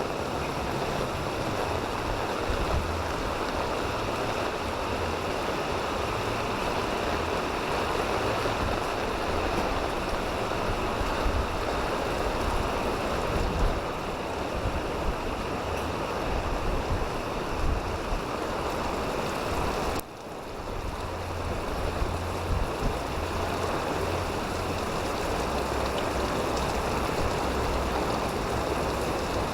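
Steady rain falling, a continuous hiss. It drops out suddenly about two-thirds of the way through and comes back within a second or two.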